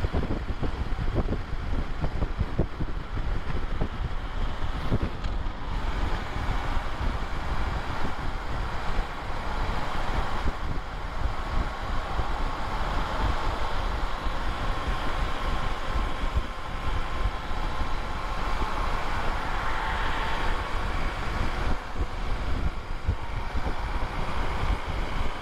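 Gusty wind noise on the microphone with road noise, heard while riding a BMW R1150RT motorcycle at about 75 to 105 km/h. The bike's engine runs underneath.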